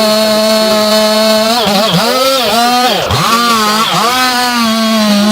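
Two-stroke chainsaw at high revs, its pitch steady at first, then bogging down and recovering several times from about a second and a half in as the chain takes load in the wood.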